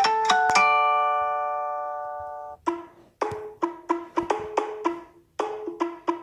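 Samsung Galaxy Grand Prime Plus ringtones playing: a few bell-like notes ring out and fade, then cut off about two and a half seconds in, and the next ringtone starts with short, quick notes in a repeating rhythmic pattern.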